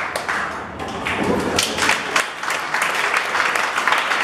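Audience of spectators applauding, a steady patter of many hands clapping.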